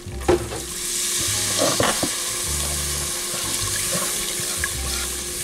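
Milk being poured into a hot butter-and-flour roux in a pot and whisked in, giving a steady sizzle, with a few taps of the whisk against the pot in the first couple of seconds.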